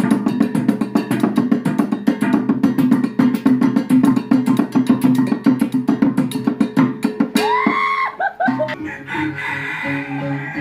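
Pala'wan tribal music: fast, dense percussion over a steady low drone, giving way about eight seconds in to a plucked string instrument playing steady notes.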